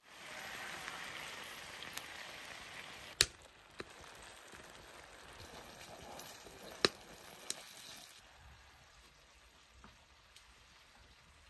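Food sizzling in a pan, with two sharp knocks, about three seconds in and near seven seconds, each followed by a fainter one; the sizzle dies down near the end.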